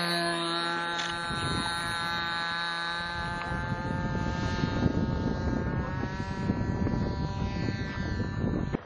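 Small RC model airplane engine running steadily at high revs as the plane flies away, its whine slowly fading, with wind rumbling on the microphone from about a second in. The sound drops off abruptly near the end.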